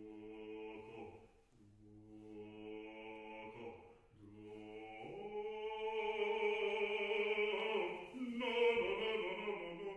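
Live music of a deep voice singing long held notes in slow phrases, with short breaths between them; it swells to a longer, louder note about halfway through.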